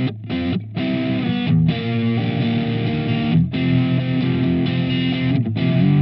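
SQOE SETL450 electric guitar with humbucker pickups played through an overdriven amp: distorted chords and riffs, choked off short several times between held chords.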